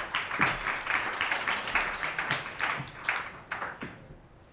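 Audience applauding, many hands clapping unevenly, fading out near the end.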